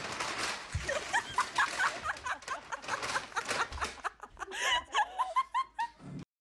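A person laughing in quick, repeated bursts, over a rustling noise; the sound cuts off abruptly near the end.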